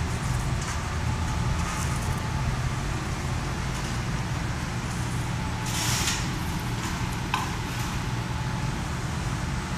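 PROBAT GG150 coffee roaster running with a steady low machine hum. A short hiss of air comes about six seconds in, and a single click follows a second later.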